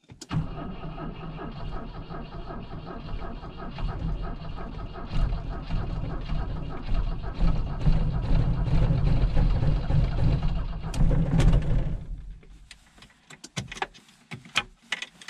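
The carbureted 2.3-litre B23A four-cylinder engine of a 1986 Volvo 245 starting and running on a cold winter start. It grows louder in its second half and stops about twelve seconds in, followed by a few scattered clicks.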